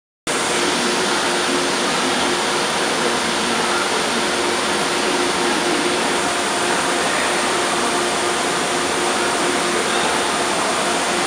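Steady, loud rushing noise with a faint hum in it, cutting in suddenly just after the start and holding unchanged.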